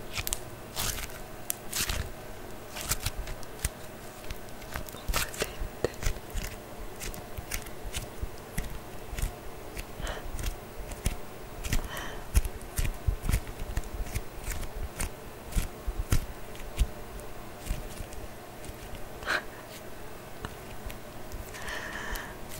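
Sticky anti-stress goo, like a slime, being squeezed and pulled apart in the hands and over the fingers, making irregular sticky clicks and crackles.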